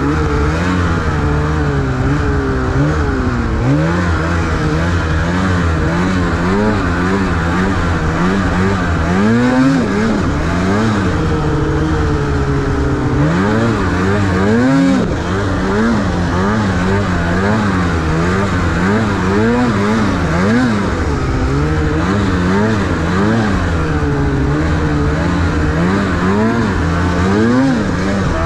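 Snowmobile engine running under throttle, its pitch rising and falling about once a second as the throttle is worked on and off along the trail.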